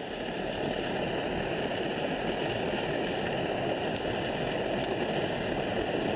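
Gas-canister camping stove burning under a cooking pot: a steady rushing hiss, with a few faint ticks on top.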